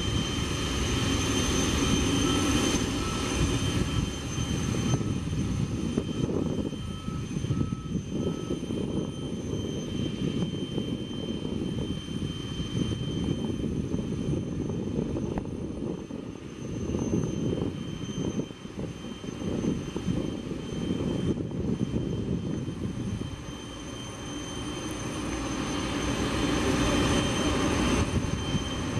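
Boeing 747-400 freighter's jet engines running on the ground: a steady low rumble with a thin high whine. The level dips briefly a little past the middle and then rises again.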